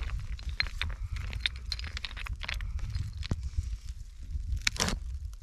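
Dry brushwood being snapped and pulled from a shrub by hand: a run of sharp cracks and twig crackles, with a louder cluster of snapping near the end, over a steady low rumble.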